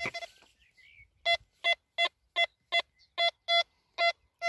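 Nokta Makro Quest Q30+ metal detector sounding a target through its own speaker: a string of short, evenly spaced pitched beeps, about three a second, starting just over a second in. The screen reads a target ID of 83 for the buried signal.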